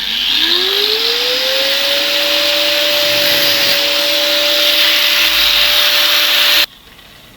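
Electric cutting tool spinning up with a rising whine that settles into a steady pitch, cutting through the metal body of a shock absorber strut with a loud steady hiss; it stops abruptly near the end.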